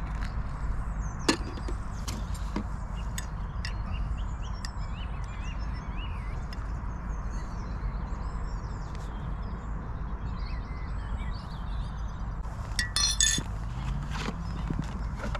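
Clinks and knocks of tea being made in a mug: a sharp clink about a second in and a quick run of clinks near the end, over a low steady rumble.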